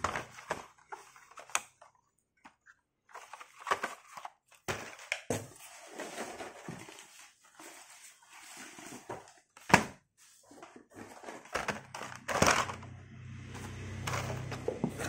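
Carded plastic blister packs of toy cars being handled: irregular crinkling, clicking and knocking of the plastic and card, with one sharp knock about ten seconds in.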